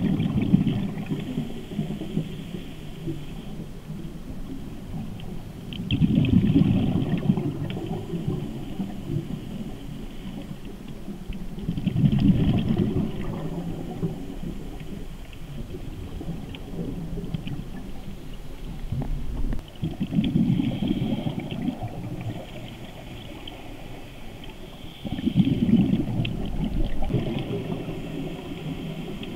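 Scuba diver's regulator breathing heard underwater: a rumble of exhaust bubbles on each exhale, five breaths about every five to eight seconds, each with a hiss through the regulator.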